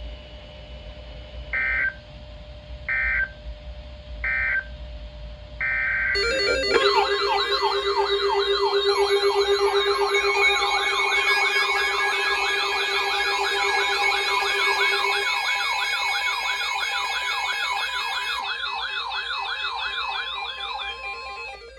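Emergency Alert System tones: four short beeping data bursts about a second and a half apart, then, about six seconds in, a louder warbling alert tone of several wavering pitches that runs about fifteen seconds and cuts off near the end.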